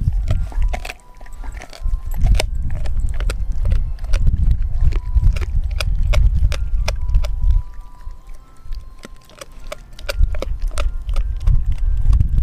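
A Doberman gnawing a raw frozen pig's foot: irregular crunches and clicks of teeth on bone and gristle, several a second. Underneath is a low rumble that comes and goes, dropping away for a couple of seconds after the middle.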